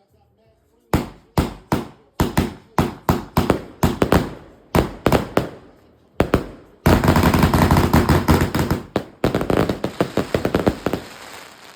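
Fireworks going off in a rapid string of sharp bangs, about two to three a second, starting about a second in. About halfway through the bangs merge into a dense barrage for a couple of seconds, then a few more bangs follow and fade near the end.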